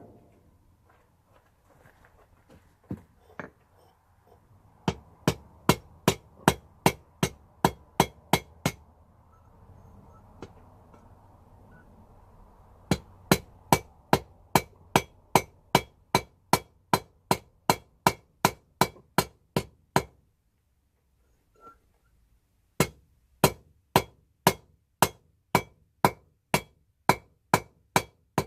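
Hand hammer striking hot rebar on an anvil, in three runs of steady blows at about three a second with short pauses between, each blow a sharp metallic strike. A low steady rushing noise runs under the first two runs and stops about 20 seconds in.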